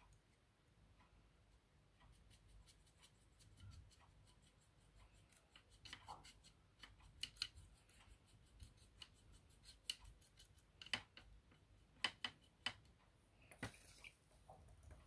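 Quiet, irregular small clicks and taps of a paintbrush and paint pots being handled while dark paint is mixed, starting about five seconds in and coming more often after that.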